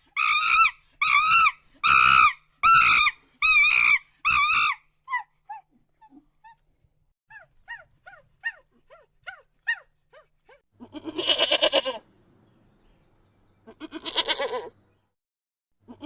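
Animal calls: a run of seven short, wavering cries about two-thirds of a second apart, then faint short falling chirps, then two long goat bleats, at about eleven and fourteen seconds in.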